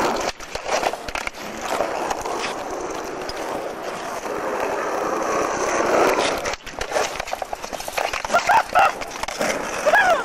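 Skateboard wheels rolling over rough asphalt. About two-thirds of the way in comes a quick run of clacks and knocks as the board hits a wooden bench.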